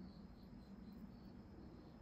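Near silence, with crickets chirping faintly in a steady, regular pulse of high chirps.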